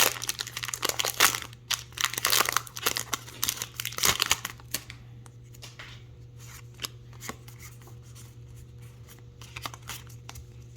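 Foil wrapper of a Pokémon trading-card booster pack being torn open and crinkled for about five seconds, then quieter handling with a few light clicks, over a steady low hum.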